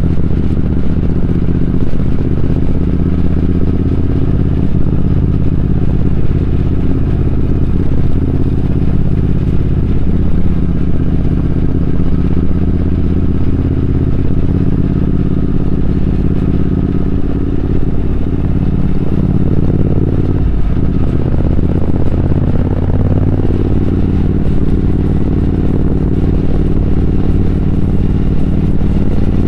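Triumph Speed Twin 1200's parallel-twin engine running steadily under way. Its note dips briefly and picks up again about two-thirds of the way through.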